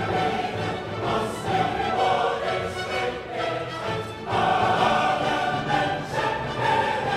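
Background music: a choir singing long held chords, swelling a little about four seconds in.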